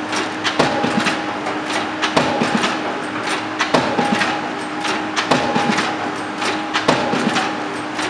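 Hydraulic pile driver hammering precast concrete piles: a heavy strike about every one and a half seconds, five in all, with lighter clanks between strikes and a steady machine hum underneath.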